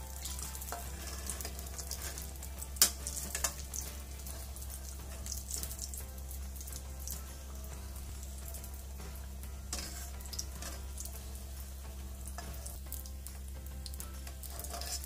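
Samosas deep-frying in hot oil: a steady sizzle with scattered crackles, and a sharp clink about three seconds in.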